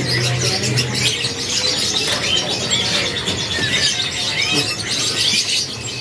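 Many small caged songbirds chirping and twittering at once: a dense chorus of overlapping high calls, with a low hum underneath for about the first second.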